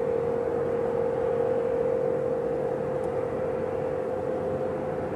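Fishing tug's engine running steadily as the boat motors along, a constant drone with one held tone.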